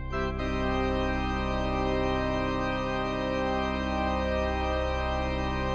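Background organ music: sustained chords, with a new, fuller chord coming in right at the start.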